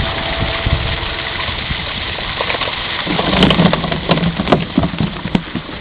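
Steady splashing and churning of water over a low motor hum. Several sharper splashes or knocks come in the second half.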